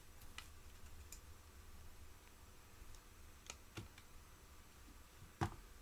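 A few faint clicks and taps of small objects being handled on a workbench, with a sharper knock near the end, over a low steady hum.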